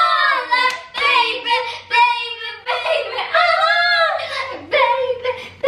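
Girls singing a song aloud, in short phrases with held notes.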